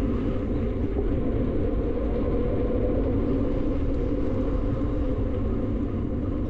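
Steady low rumble of wind and rolling noise from riding an electric bicycle, with no single event standing out.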